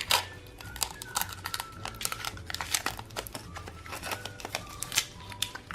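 Cellophane wrapper crinkling and crackling as it is handled and peeled off a plastic candy container, in quick irregular crackles.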